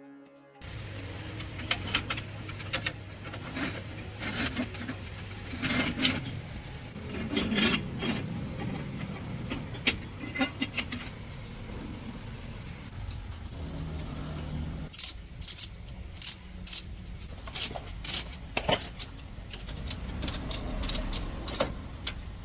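Metal tools and parts clinking, knocking and rattling during hands-on repair work, over a low steady hum that drops away about fifteen seconds in, after which a quick run of sharp clicks follows.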